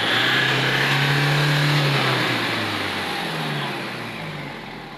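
Diesel engine revved with a short press of the throttle: the pitch climbs over about two seconds, then falls back toward idle. The engine has a misfire and, by the mechanic's account, does not rev out fully.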